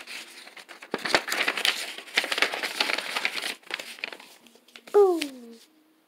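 Paper rustling and crinkling as printed instruction sheets and packing paper are handled and pulled about. Near the end a voice gives one short sound that falls in pitch.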